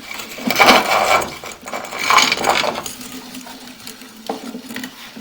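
Sewer inspection camera equipment scraping and clattering in two bursts, about a second in and again at about two seconds, over a steady faint hum.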